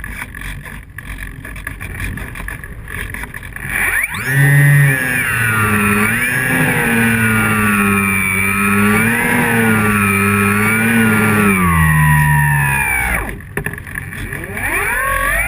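Electric motor and propeller of a Flyzone Calypso model plane. First there is wind rushing over the wing-mounted camera. About four seconds in, the motor throttles up to a loud whine that wavers in pitch, cuts back a couple of seconds before the end, and begins rising again just at the end.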